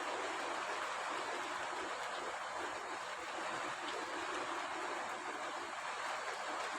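Rain falling steadily, not too heavy: an even hiss of drops that holds at one level throughout.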